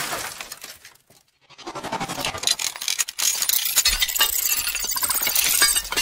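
Sound effect of glass shattering, with shards clinking and tinkling for several seconds after a short silence about a second in. A low rumble joins about two-thirds of the way through.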